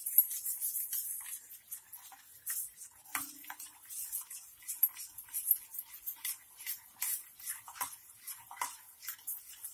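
A spoon stirring thick gram-flour (besan) batter in a steel bowl: a continuous run of soft wet clicks and scrapes, several a second.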